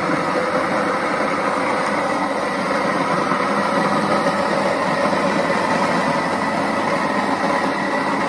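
Small electric household grain mill running steadily while it grinds spelt grain into flour.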